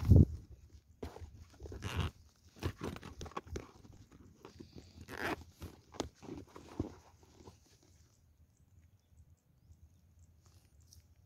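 Irregular crunching and rustling as hands work a caught mud crab among dry marsh grass and a net bag, dying away after about eight seconds.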